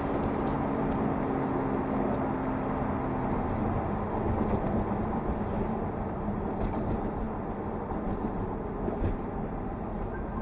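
Road and engine noise inside a Porsche's cabin while driving along at a steady pace; a steady hum stops about three and a half seconds in.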